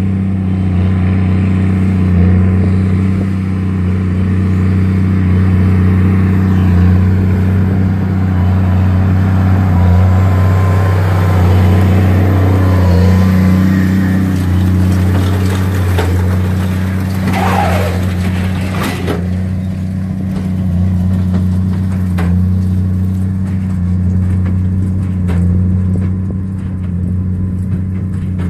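Tractor engine running steadily under load with a constant low drone, with a brief louder scraping noise about seventeen to nineteen seconds in.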